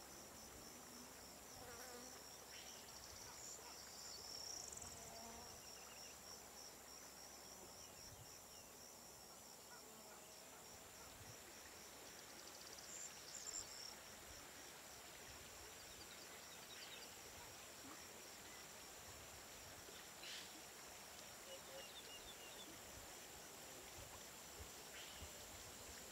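Faint summer woodland ambience of insects singing: a high, rapidly pulsing trill and a steady high hum, with a few brief faint chirps.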